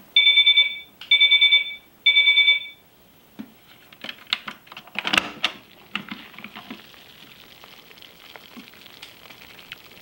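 Toy Miele Softtronic washing machine giving three short electronic beeps, its end-of-programme signal, followed by a scatter of clicks and knocks as hands handle the machine at its door.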